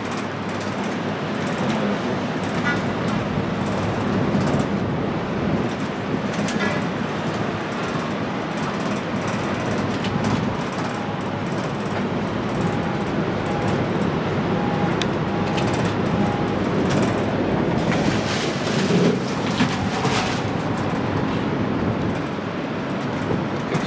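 Riding noise inside a moving cable-car gondola on the Ngong Ping 360 line: a steady rushing noise, with a cluster of clicks and rattles about eighteen to twenty seconds in.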